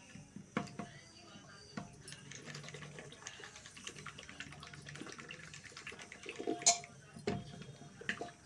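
Wooden mathani twirled between the palms in thick cooked chana dal in a pressure cooker, mashing it: wet sloshing and squelching with a few sharp knocks, the loudest about two-thirds through.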